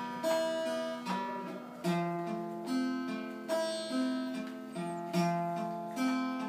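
Acoustic guitar picked in a slow, steady pattern of single chord notes, each one ringing on into the next.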